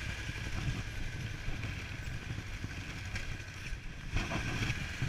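BMW F800GS parallel-twin motorcycle engine running at low speed with a steady low rumble.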